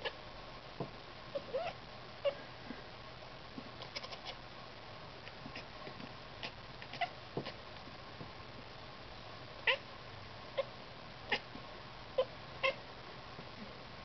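Domestic cat chattering at birds: short chirps and clicks, about fifteen of them at irregular intervals, some with quick little rises in pitch.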